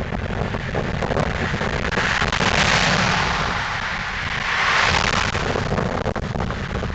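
Ford Crown Victoria Police Interceptor's 4.6-litre V8 driving past, with a rapid low ticking from its leaking exhaust running under the engine sound. The sound swells twice, about two and five seconds in.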